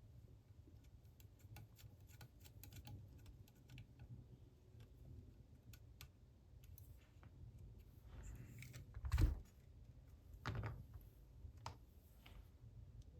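Small clicks and taps of a camera body's metal parts and small hand tools being handled during reassembly, with a louder knock about nine seconds in and another about a second and a half later.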